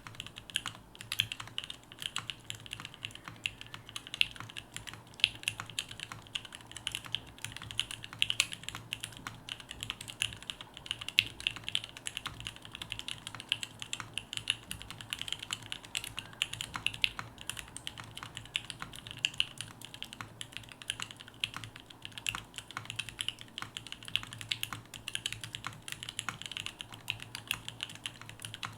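Continuous fast typing on a custom mechanical keyboard: linear switches with inks housings and UHMWPE stems in an aluminum plate, gummy O-ring mount, no foam, and CRP keycaps, giving dense, even clacks.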